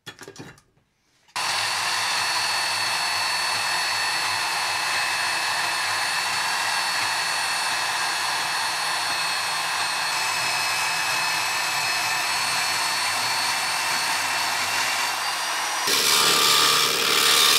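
Brief clatter of a steel disc being set down, then a bandsaw running steadily as it cuts the steel disc, a constant whine with several high tones. About sixteen seconds in, a Wilton belt grinder takes over, louder and hissier as it grinds the steel edge.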